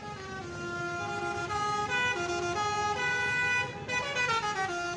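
Bus's basuri (telolet) multi-trumpet musical horn playing a tune: several notes sounding together and stepping from pitch to pitch, with a falling slide near the end before it cuts off suddenly.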